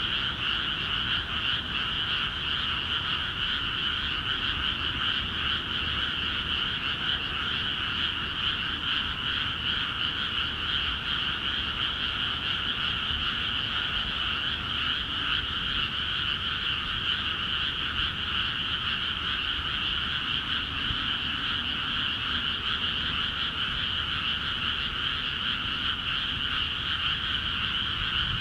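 Dense, unbroken chorus of many frogs calling at once in flooded rice paddies, a steady high-pitched din with no pauses.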